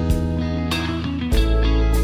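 Instrumental background music with sustained chords over a strong bass and a steady beat.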